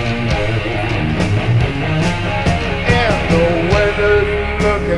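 Live rock band playing an instrumental passage: an electric guitar carries the melody, with bends and a held note near the end, over bass and drums with regular cymbal strikes.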